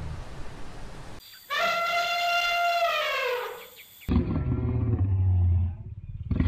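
An elephant trumpets: one high, brassy call of about two seconds that drops in pitch as it ends. It then gives a lower, rumbling call. Right at the end a lion begins to roar.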